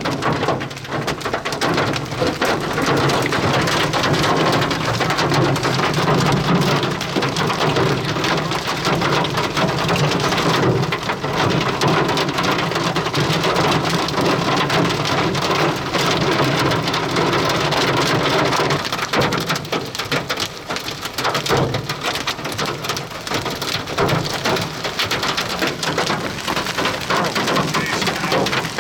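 Heavy rain pelting a vehicle in a severe thunderstorm: a dense, steady patter of drops hitting the body and windshield.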